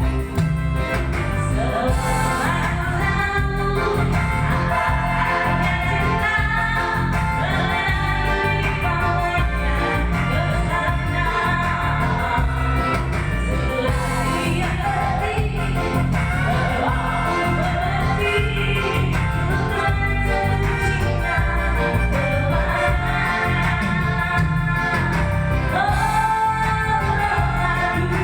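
A woman singing a song in a sweet voice over instrumental accompaniment, the music going on without a break.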